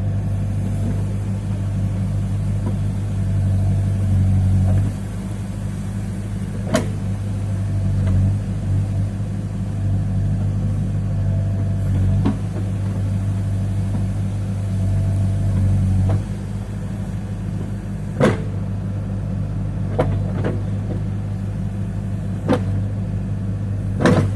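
Case 580 backhoe loader's diesel engine running steadily, its note swelling and easing every few seconds under working load, with sharp knocks about half a dozen times.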